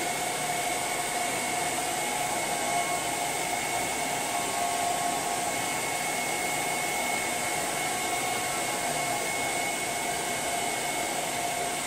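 Handheld hair dryer running steadily, a constant rush of air with a steady whine over it.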